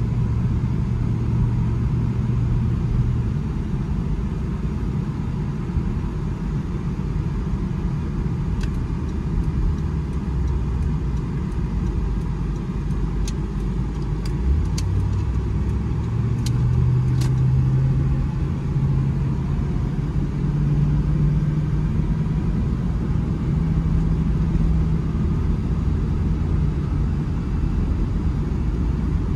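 Inside the cabin of a 2000 Land Rover Discovery V8 on the move: steady low engine and road rumble. The engine note drops about halfway through, then rises again as the truck picks up speed. A few faint clicks come in the middle.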